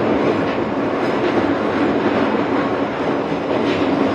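Izuhakone Railway Sunzu Line electric train running, heard from inside its rear cab: a steady rumble of wheels on rail, with a few faint clacks.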